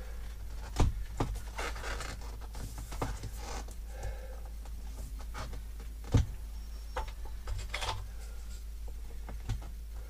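Pencil scratching and a round template rubbing and tapping against a painted wooden board ceiling as a circle is traced out for a cut-out. A few light, sharp taps stand out, about a second in and again about six seconds in.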